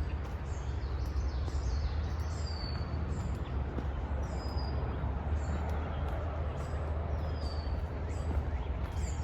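Small birds chirping: short, high, downward-sliding chirps repeated every second or two, over a steady low rumble.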